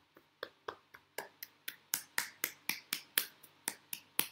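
Do-In self-massage tapping: a hand striking along the arm in a steady run of sharp slaps, about four a second, after a short pause at the start.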